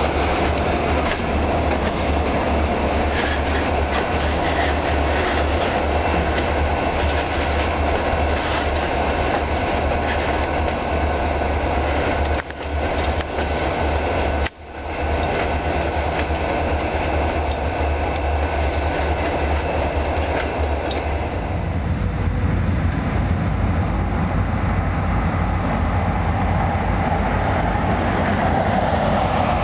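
Freight train of boxcars rolling past close by, the cars and wheels rattling steadily on the track. The sound briefly drops out twice near the middle, and from about two-thirds in it turns into a steadier, deeper rumble.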